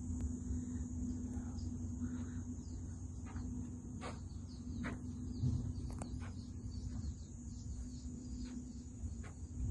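Steady high-pitched insect drone, with short bird chirps scattered through it, over a low steady hum.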